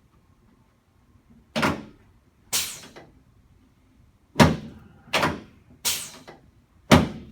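Six sharp thuds from the chiropractic table as quick, forceful thrusts are delivered to the lower back and SI joints of a patient lying face down, each a hard clack that dies away within half a second, coming at uneven intervals from about a second and a half in.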